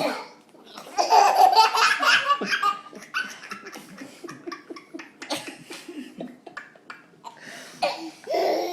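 Toddler belly-laughing: a loud burst of laughter about a second in, a string of shorter giggles, and another laugh near the end.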